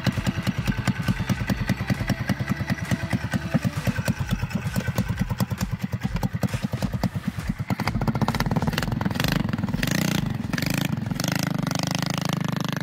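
Small gas engine on a homemade mini vehicle, chugging at a slow, even beat, then revving up about eight seconds in and running steadily as the vehicle drives off.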